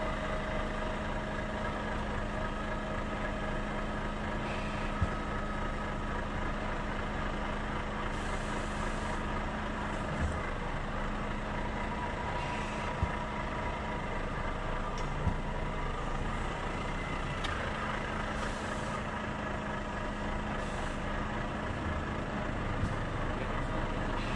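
Heavy truck's engine running steadily at low speed as the tractor unit pulls a long oversize trailer, with a few short sharp clicks or knocks.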